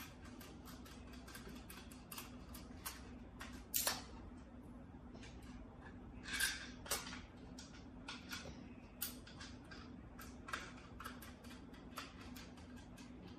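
A screwdriver and small plastic and metal parts clicking, ticking and tapping as screws are driven into a slingshot's plastic grip. There are a few louder knocks, the loudest about four seconds and six and a half seconds in, and a faint steady low hum underneath.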